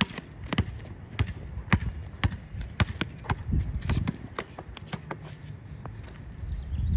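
A basketball being dribbled, bouncing about twice a second, with fainter ticks and footfalls between the bounces.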